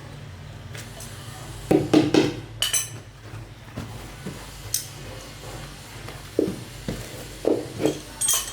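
Irregular knocks and metallic clinks of hand tools being handled and set down, in small clusters, over a steady low hum.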